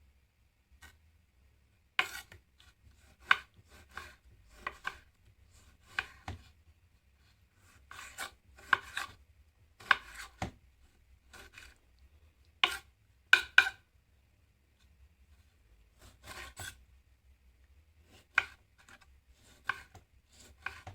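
Knife chopping food into small pieces: irregular sharp knocks, some in quick pairs, about a second apart, with a pause of about two seconds past the middle.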